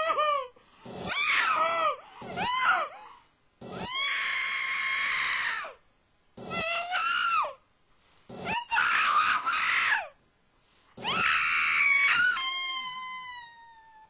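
A woman screaming: a series of about six high-pitched screams with short gaps of silence between them, two of them long and held, the last one trailing downward in pitch as it fades.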